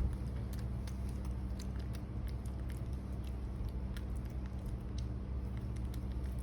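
Baby monkey eating: soft, irregular little clicks and smacks of chewing and handling food, over a steady low hum.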